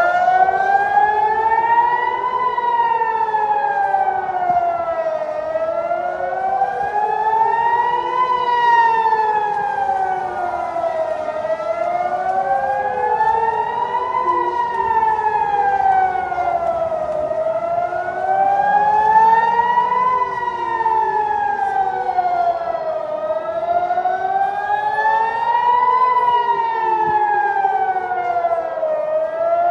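Civil-defence warning sirens wailing: the pitch rises and falls in a slow cycle of about six seconds, and more than one siren sounds out of step, so their tones cross. It is a missile alert, warning of an incoming missile.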